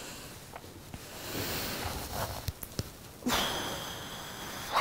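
Clothing and armchair rustling as a person gets up from an upholstered armchair, with a few light knocks. About three seconds in a high, steady squeak starts and holds.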